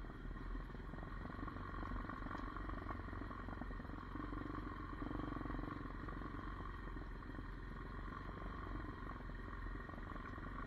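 Hawk 250 DLX dirt bike's single-cylinder four-stroke engine running steadily under way, with no clear change in revs.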